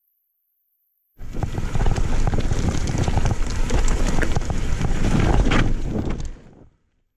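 Mountain bike descending a rough dirt trail at speed: wind buffeting the microphone over tyre noise and many sharp knocks and rattles from the bike over the ground. It cuts in suddenly about a second in and cuts out near the end.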